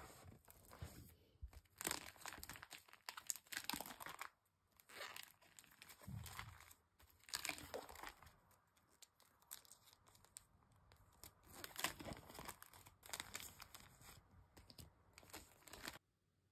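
Clear plastic binder pages and card sleeves crinkling and rustling as a photocard binder is leafed through and sleeved cards are handled, in soft, intermittent bursts that stop abruptly near the end.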